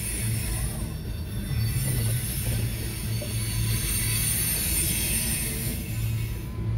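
Loaded coal hopper cars of a freight train rolling past, a steady rumble of steel wheels on the rails.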